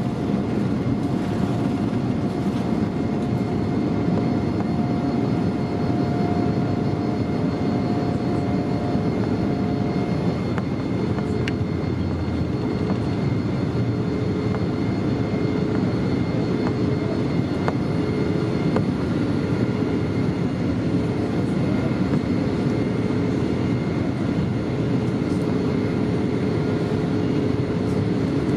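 Boeing 787-9 turbofan engines at takeoff thrust, heard inside the cabin beside the wing: a steady, dense rumble as the jet lifts off and climbs out. A faint whining tone in the engine noise stops about ten seconds in.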